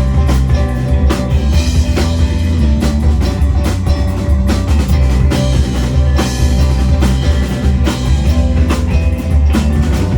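Live rock band playing a passage without vocals, with a full drum kit (bass drum and snare hits) and electric guitars.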